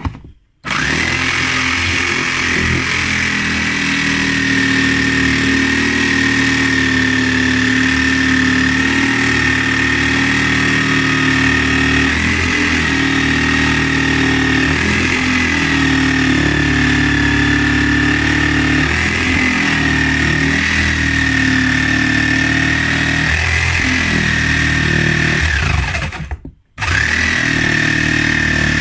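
Small electric jigsaw running steadily with a high whine, sawing through the wood of a cricket bat to cut out the handle's V splice. It starts about half a second in, stops briefly near the end and starts again.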